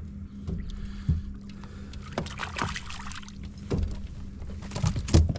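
Knocks, clatter and splashing at a kayak's side while a small walleye is reeled in and thrashes at the surface, over a steady low hum.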